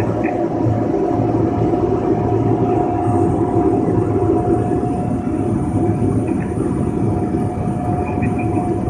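Single-engine propeller plane's engine and propeller running at a steady drone, heard inside the cabin, with a steady whine over it.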